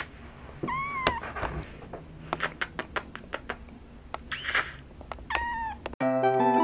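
Golden British Shorthair kitten, about eight and a half weeks old, meowing twice, once about a second in and again near the end, each a short call that rises and falls. A run of short clicks comes between the meows. Light music with mallet and plucked tones comes in near the end.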